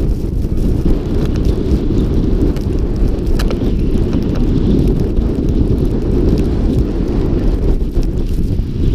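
Wind buffeting an action camera's microphone during a fast snowboard descent: a steady, loud low rumble.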